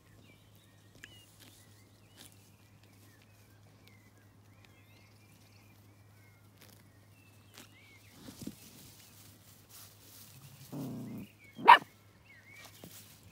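Puppies at play: a short low growl, then one loud, sharp bark near the end. Faint birdsong chirps sound in the quiet stretch before.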